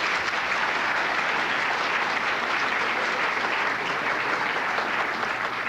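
Audience applauding: many hands clapping together in a dense, steady wash of applause.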